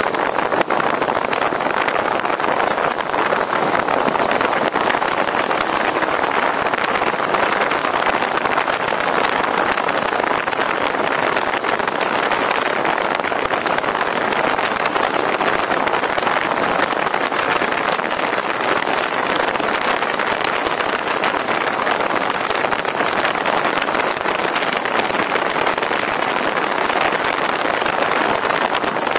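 Wind and road noise on a camera mounted on the roof of a moving MPV: a steady, even rush of air and tyres at speed. A faint thin high tone comes and goes in the first half.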